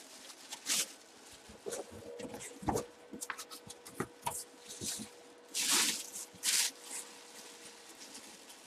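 Plastic bag crinkling and rustling as a football helmet wrapped in it is handled, with scattered light taps and knocks; the loudest rustles come a little past halfway.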